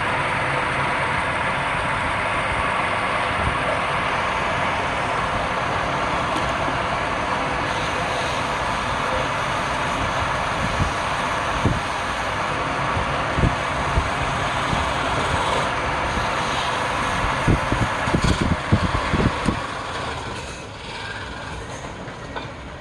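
Wood lathe running with a tool working the spinning palm-wood piece, a steady loud rasping noise. There are several low knocks near the end, and then the noise drops off to a quieter hum.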